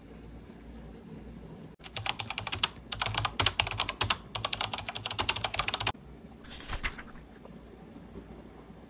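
Rapid typing on a laptop keyboard, a dense run of key clicks for about four seconds starting about two seconds in. It is followed by a brief rustle of notebook pages.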